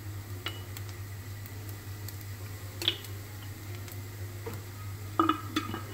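Faint light clicks and taps of a spoon and spice container as chilli powder is spooned into a pan of roasted grated coconut, with one sharper click about three seconds in, over a steady low hum.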